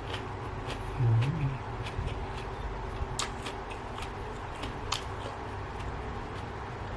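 A person eating spicy seafood instant-noodle salad: scattered small clicks and smacks of chewing, with a short low hum about a second in.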